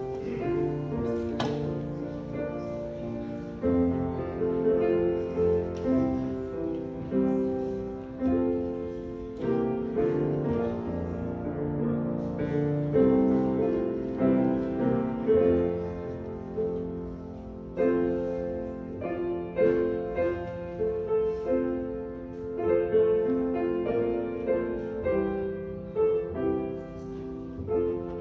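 Piano music: chords and melody notes struck and left to fade.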